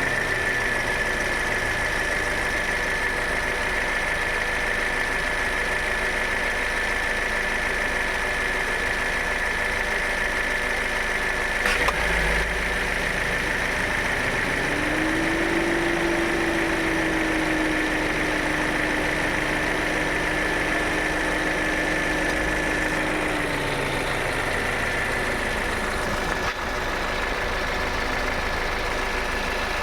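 Toyota Innova Hycross running at idle with a steady high whine; about 12 seconds in, a single sharp tock as the AC compressor kicks on. The owner says this tock was not there before and is growing more pronounced, and does not know its cause. A lower hum comes in a few seconds later, rises slightly, holds, and stops near 24 seconds.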